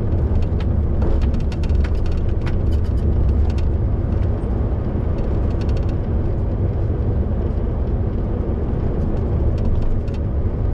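MAN lorry driving along at road speed: a steady low drone of engine and tyre noise, with scattered light clicks and ticks, most of them in the first couple of seconds and again near the end.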